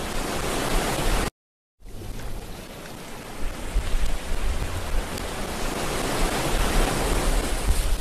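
Wind blowing across the microphone: a steady rushing hiss with uneven low rumbling gusts. The sound cuts out completely for about half a second just over a second in.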